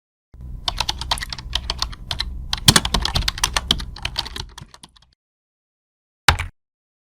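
Computer keyboard typing, a fast run of keystrokes for about four and a half seconds, then a single keystroke about six seconds in.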